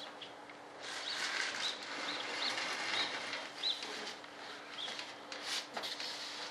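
Rustling and a few light knocks as a large RC jet fuselage is handled, with short high chirps repeating about twice a second over the first few seconds.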